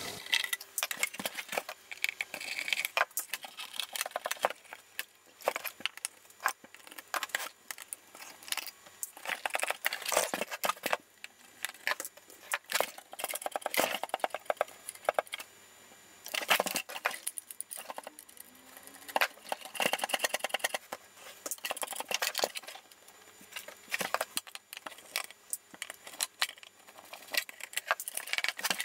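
Metal case and screws of an avionics compass computer being worked on: irregular clicks, clinks and scrapes as screws are undone with a screwdriver and the metal panels and chassis are handled.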